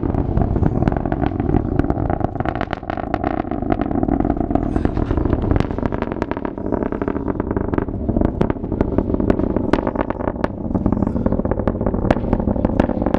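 Falcon 9 rocket's nine Merlin 1D engines heard in flight from several miles away: a loud, continuous rumble shot through with sharp crackles.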